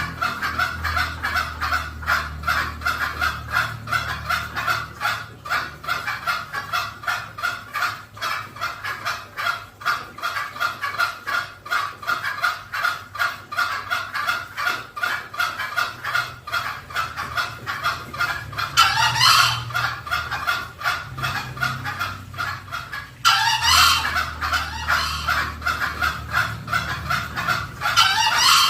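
Green junglefowl calling: a fast, even run of short clucking notes, broken three times by a louder, harsh crow that sweeps upward in pitch, about two-thirds of the way in, again a few seconds later, and at the very end. A low hum lies underneath.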